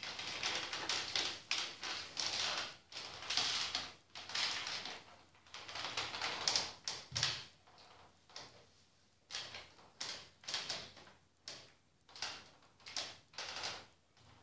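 Body-movement noise of a man climbing onto a wooden folding chair and holding himself out across it: a run of short hissing, rustling bursts. Near the end they come apart into separate bursts about twice a second.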